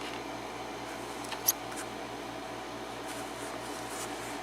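Light clicks of lock-picking tools being handled at a small pin-tumbler lock cylinder, one sharper click about a second and a half in, over a steady low electrical hum.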